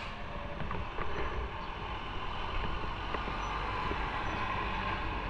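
Motorcycle running steadily on the move, its engine and road noise a constant rumble.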